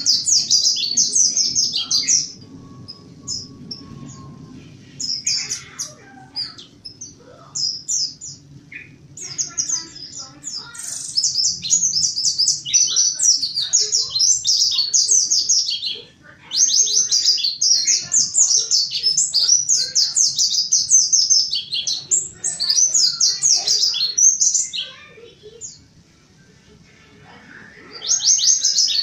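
Mountain white-eye (pleci montanus) singing a fast, high-pitched chattering song in long runs. Between the runs come pauses with a few scattered chirps. One long run fills most of the middle, with a short break, and the song starts again near the end.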